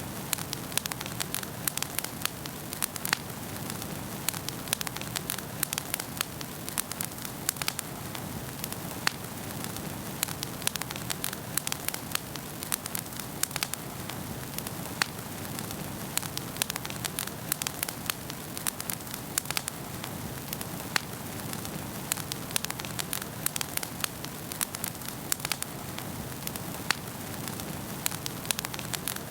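Wood fire burning in a fireplace, crackling and popping irregularly over a steady hiss.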